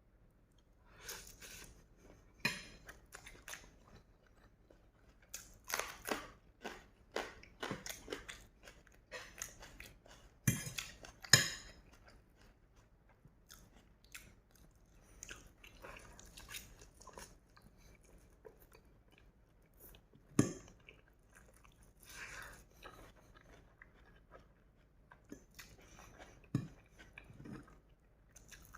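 A person eating noodles close to the microphone: irregular chewing and crunching, with a few louder crunches about ten seconds in and again near the middle.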